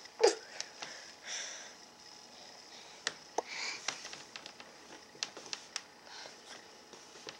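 A toddler's soft, breathy sniffs and breaths in a quiet room, with a few faint clicks and taps.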